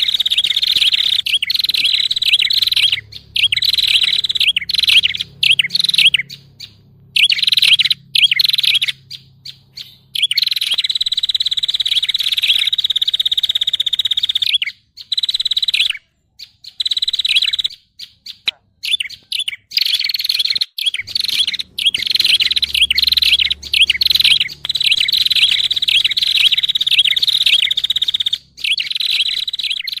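Prenjak (prinia and tailorbird) calls played as a bird-trapping lure: fast, high-pitched chattering in stretches of several seconds, broken by short pauses.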